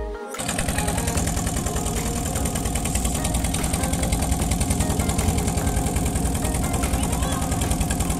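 Engine of a wooden passenger motorboat running steadily under way, a fast even chugging with a hiss over it. It cuts in abruptly just after the start.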